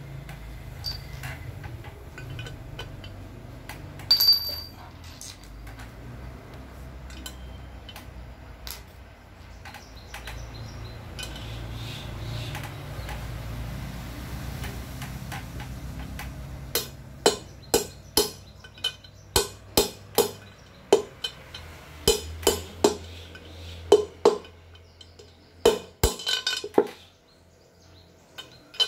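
Metal parts clinking as a needle bearing is handled and set into an aluminium Bajaj CT 100 gearbox casing, with one bright ringing clink about four seconds in. A little past halfway, a rubber mallet starts striking the casing: a run of about fifteen sharp taps, driving the bearing into its bore.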